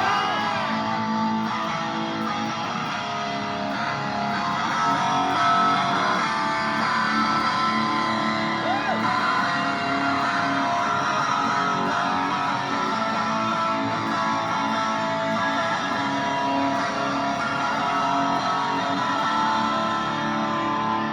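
Live guitar intro played through a concert PA: sustained, ringing guitar chords and notes at a steady level, without drums, just before the full band comes in.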